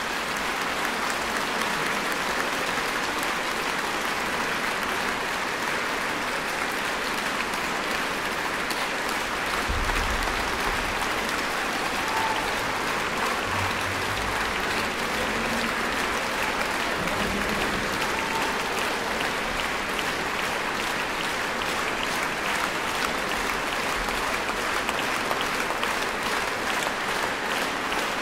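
Large concert-hall audience applauding, a dense, even clapping that holds steady throughout.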